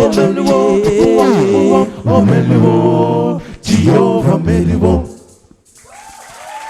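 A cappella vocal group singing praise in close harmony over a low sung bass line. The song stops about five seconds in, and what follows is much quieter.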